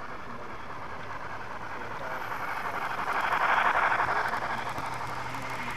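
Model train passing close by: a rushing running noise that swells to its loudest about three and a half seconds in, then fades.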